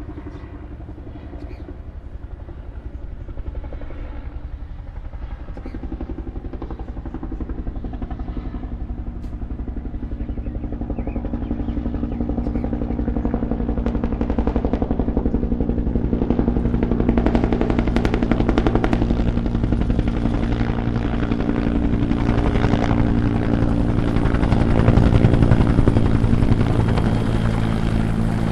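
Helicopter hovering: rotor blades beating in a fast, steady thrum over a continuous engine drone, growing gradually louder.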